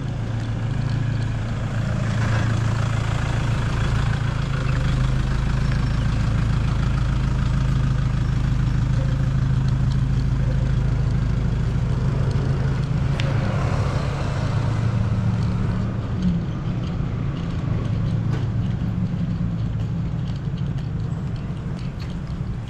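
Street traffic: a motor vehicle engine running with a steady low hum, over general road noise, easing off a little near the end.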